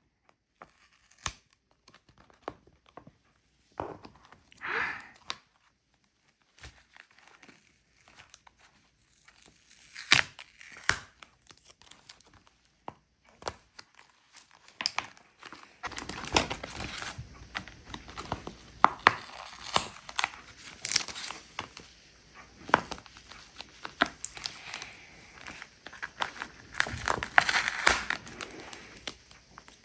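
Handmade paper and tape quiet book being handled: paper crinkling and rustling, with ripping sounds like taped pieces being pulled free and scattered sharp taps. It is sparse for the first half and gets busier and steadier from about halfway.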